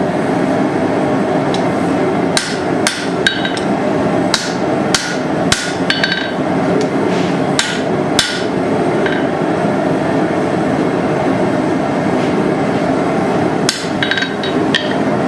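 A hammer striking hot steel on an anvil: a scattered run of sharp, ringing blows, with a pause of several seconds in the middle. A steady rushing noise runs underneath.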